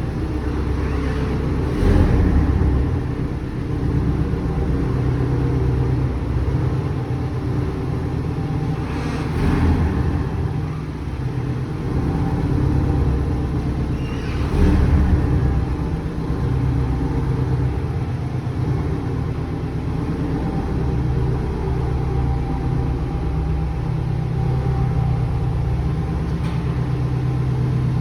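Porsche 718 Boxster driving: steady engine hum and road rumble, with a few brief swells where it picks up.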